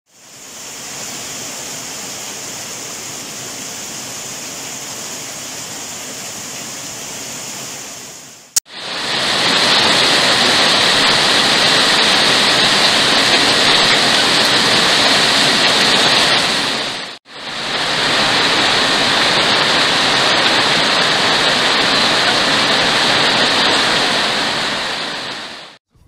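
Steady rain falling, heard as an even hiss in three takes through different microphones, a phone's built-in mic and a BOYA BY-MM1 cardioid mic. Each take cuts off abruptly. The first is quieter and duller, and the second and third are louder and brighter.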